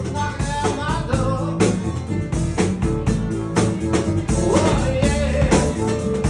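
Live blues band playing, with guitar lines over drums.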